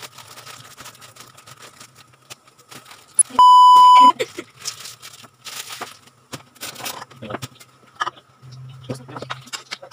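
A steady high test-tone beep, the kind played over TV colour bars, sounds once for under a second about three and a half seconds in and is the loudest thing here. Around it come scattered clicks and rustles of handling over a faint low hum.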